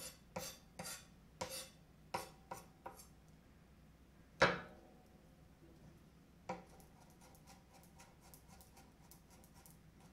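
Chef's knife chopping garlic cloves on a small cutting board. First comes a run of separate knocks, then one loud knock with a short ring about four and a half seconds in. In the last few seconds it turns to fast, light tapping as the garlic is minced.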